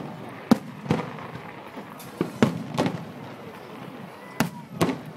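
Aerial firework shells bursting overhead: about eight sharp bangs at uneven intervals, some in quick pairs and triplets.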